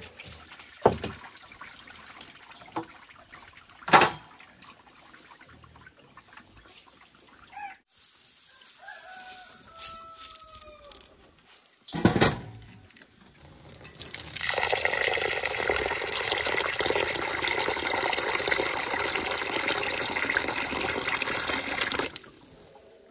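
Water running steadily for about eight seconds, starting a little past halfway and cutting off suddenly. Before it, a few scattered sharp knocks.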